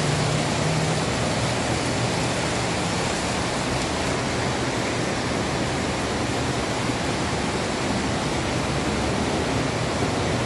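Standard gauge model trains running on the layout's metal track, giving a steady, even rumble-and-rush of wheels and motors with no breaks.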